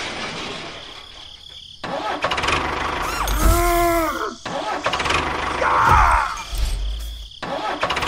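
Tractor engine sound running roughly and unevenly, cutting in loudly about two seconds in. A short tone rises then falls about three and a half seconds in, and a rough burst comes near six seconds.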